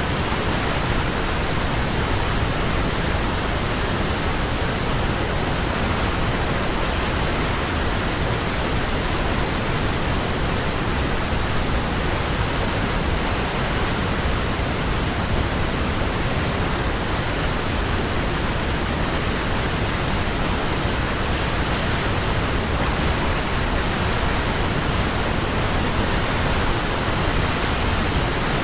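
Waterfall: falling water making a steady, even rush with no change.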